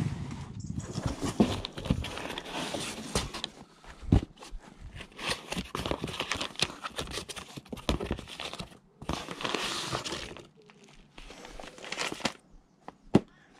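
Cardboard boxes and plastic packaging being handled: irregular bursts of rustling, scraping and crinkling, with a few sharp knocks. The handling goes quieter after about ten seconds.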